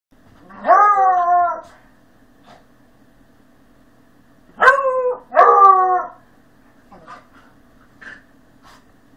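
A beagle baying during play-wrestling: three drawn-out, wavering howls, one about a second in and two back to back around five seconds in.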